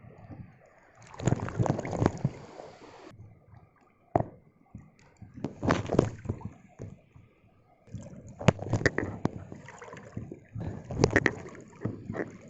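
Sea water sloshing and splashing in three or four surges as waves break around a wading angler, with sharp crackles and clicks on top.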